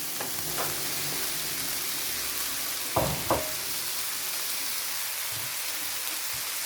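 Food sizzling steadily in hot oil in a cooking pot, with two sharp knocks close together about three seconds in.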